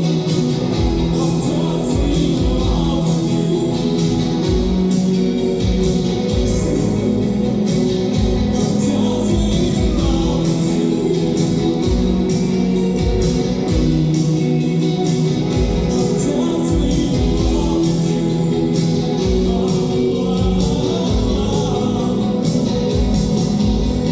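Live band music: drums keep a steady beat under guitar and long held sung notes.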